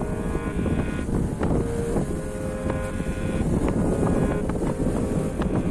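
Wind buffeting the microphone over the steady rush of choppy open sea, with a few brief knocks.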